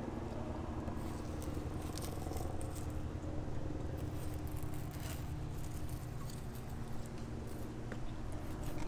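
A flexible fillet knife slicing along a kingfish's backbone, with faint scraping and crunching as the blade rides over the bones. A steady low hum runs underneath.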